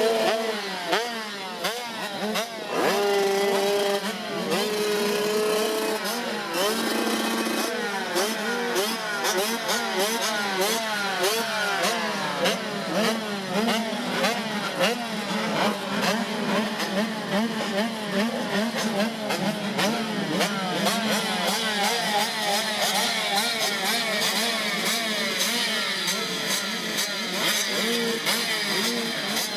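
A pack of 85cc two-stroke motocross bikes revving together, many engines rising and falling in pitch at once. A few hold steady revs for a couple of seconds about three seconds in.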